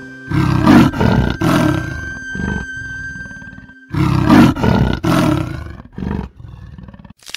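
Leopard roaring: two runs of about three loud calls each, each call in a run shorter than the one before.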